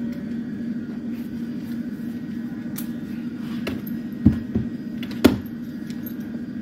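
Steady low hum in a workshop, with a few short clicks and knocks; the sharpest knock is about four seconds in and another comes about a second later.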